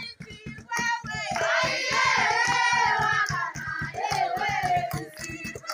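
Young female voices singing a traditional Rwandan dance song over a fast, steady beat of hand claps, about five a second. The singing is loudest from about a second in to past the middle, then comes back briefly near the end.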